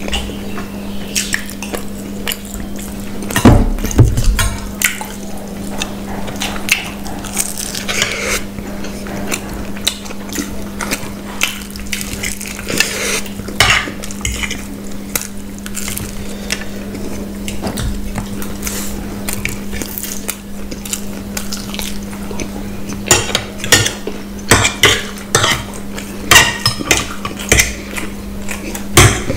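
Metal forks and spoons clinking and scraping against plates while people eat, with close-miked eating noises. A couple of heavier knocks come a few seconds in, the clicking grows busier near the end, and a steady low hum sits underneath.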